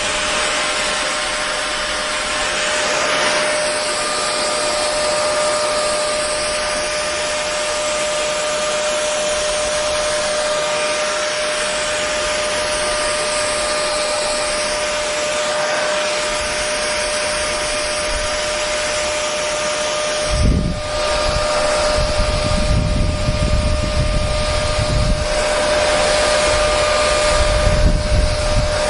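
Hair dryer running continuously, a steady rush of air with a constant motor whine. About two-thirds of the way through, a deep, uneven rumble of air buffeting joins in.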